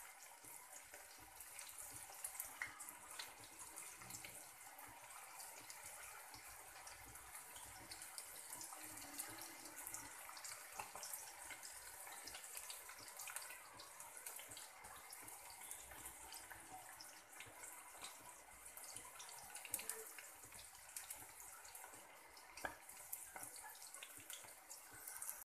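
Faint sizzling of hot oil in a wok as spice-coated vegetable pieces deep-fry, a steady hiss dotted with small crackles and pops.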